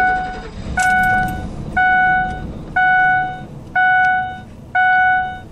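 2004 Ford F-150 dashboard warning chime ringing six times, about once a second, each ding clear and quickly fading, with the freshly started 4.6L V8 idling underneath.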